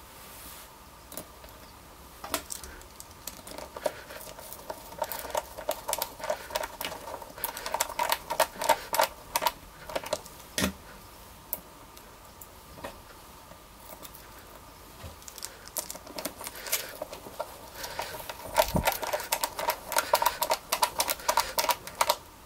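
Cordless drill driving screws through washers into a wooden block, fixing abrasive discs cut from a grinder cutting disc, with rapid clicking in two spells, the second near the end.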